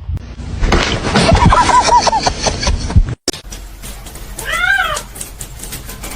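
A domestic cat meowing once, a single rising-and-falling call about halfway through. Before it, over a noisy stretch, comes a quick run of short high calls.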